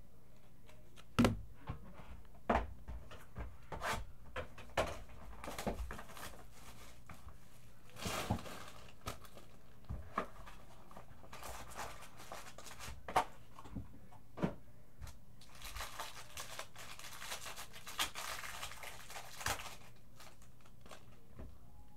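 A Tier One baseball card box being handled and opened: scattered clicks and knocks of the box, then a foil-lined pack wrapper crinkling and tearing, with the longest stretch of crinkling in the second half.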